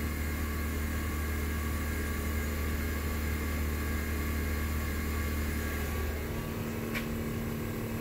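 Homemade heat-pump water heater running, its compressor and blower humming steadily. The deep low hum drops away about six seconds in, followed by a faint click.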